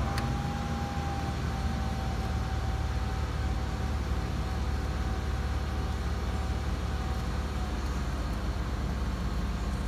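Ford Five Hundred's 3.0-litre V6 idling, a steady low hum heard from inside the cabin, with a faint thin whine that fades out about eight seconds in.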